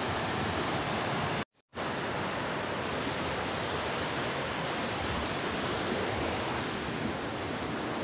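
Waterfall and creek water rushing, a steady, even noise. It cuts out completely for a moment about a second and a half in.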